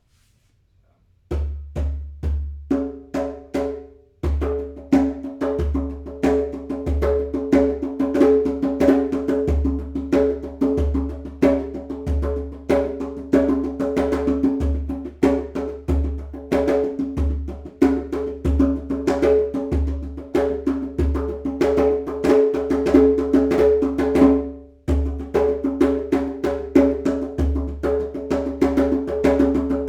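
Hand drumming on a carved goat-skin djembe, a fast steady rhythm of deep bass strokes mixed with ringing tones and sharp slaps. The playing starts about a second in and stops briefly twice, near 4 seconds and again around 25 seconds.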